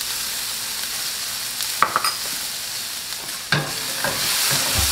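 Diced onions sizzling in oil in a stainless steel skillet. About three and a half seconds in, a spatula starts stirring them, scraping and knocking against the pan.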